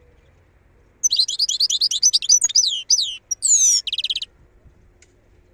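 European goldfinch singing one phrase of about three seconds, starting about a second in: a quick run of high twittering notes and slurred whistles that ends in a fast buzzy trill.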